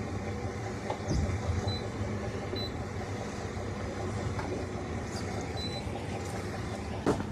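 Boat engines idling with a steady low rumble, with a couple of short knocks: one about a second in and one near the end.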